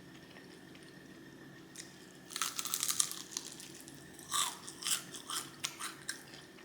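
Crunching bites into crispy, spicy fried chicken, then chewing with scattered crunches. The first bites come about two seconds in.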